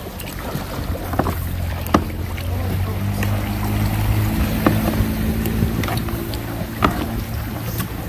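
A motorboat engine hums steadily nearby and gets louder about three seconds in. Over it come sharp knocks and splashes of kayak paddles on the water and hull.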